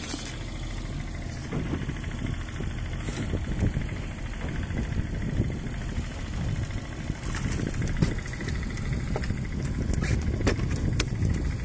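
Small fishing boat's engine idling steadily, with a few sharp clicks and knocks in the second half from gear being handled.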